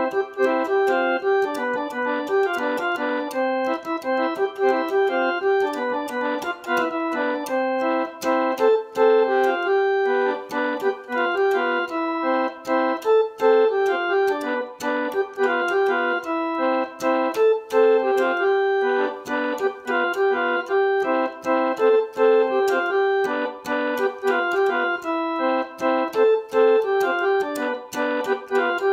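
Casio CTK-2080 electronic keyboard played by hand: a fast, continuous melody of many short notes in the middle and upper register, with no bass line underneath.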